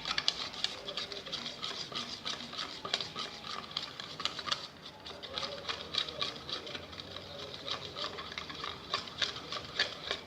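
Glue and paint being stirred in a pot: the stirrer scrapes and clicks against the sides in quick, irregular strokes.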